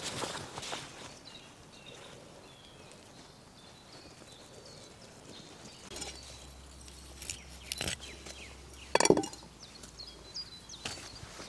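Tarp fabric rustling briefly at the start, then a few sharp knocks and clinks of a large knife blade on a weathered driftwood plank as twine is cut on it, the loudest about nine seconds in.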